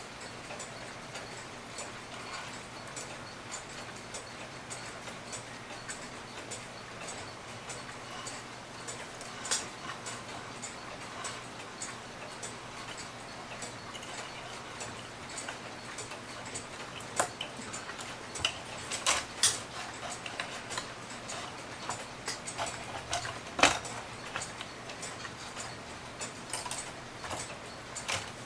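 A mechanical clock ticking steadily, with a few sharper clicks and knocks of small clock parts being handled in the second half.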